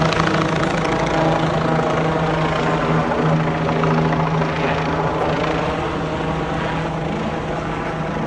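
Steady, loud engine drone with a constant low hum that holds throughout.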